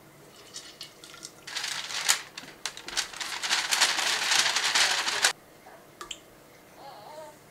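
Parchment paper crackling and rustling as it is lifted and folded to slide grated lemon zest into a steel mixer bowl, starting about a second and a half in and stopping abruptly after about four seconds.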